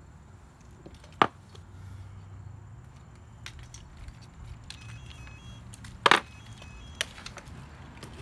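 Handling noises from a homemade RC truck chassis being picked up and moved on a table: a few sharp knocks and clicks, loudest as a double knock about six seconds in, over a faint low hum.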